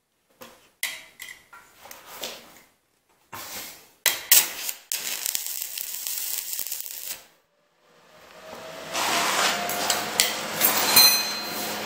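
Stick (SMAW) welding with 3/32 7018 rods on an ESAB 215ic: a few light knocks as the work is set, then the arc strikes about four seconds in and sizzles for about three seconds before stopping. A second weld starts near eight seconds and keeps sizzling, tacking a nut onto the steel.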